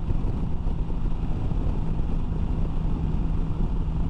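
BMW S1000XR's 999cc inline-four engine droning steadily while cruising at about 72 mph on cruise control, mixed with wind rush and tyre roar from the motorway.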